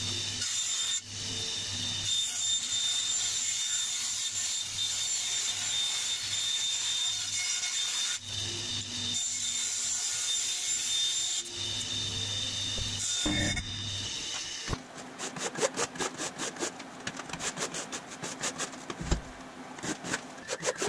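Vertical bandsaw cutting thin aluminium sheet: a steady hissing cut with a high whine over the motor's hum, easing briefly a few times as the sheet is turned. From about fifteen seconds in this gives way to a rapid series of short scraping strokes, about five a second, as the cut sheet's edge is worked by hand at a vise.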